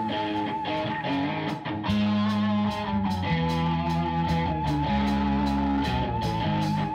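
Live rock band playing an instrumental passage, with no vocals. Electric guitar and bass guitar play over a steady drum beat, with a held, wavering high note on top. The band comes in louder about two seconds in.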